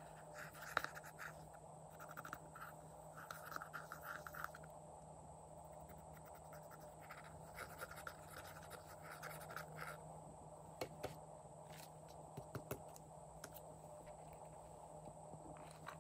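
A small plastic spatula scraping pressed eyeshadow powder out of the pans of a makeup palette: faint scratching in short runs of quick strokes, with a few light taps in between.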